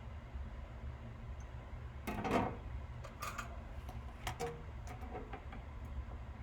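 Small clicks and handling noises from work at a soldering bench, with a louder rustle about two seconds in, over a steady low hum.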